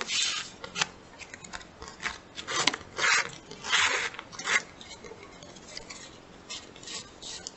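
A shoelace being pulled through the punched holes of a laminated paper lacing board, with the stiff plastic-coated sheet rustling as it is handled. It makes a run of short, irregular scraping swishes, busiest in the first few seconds and sparser after.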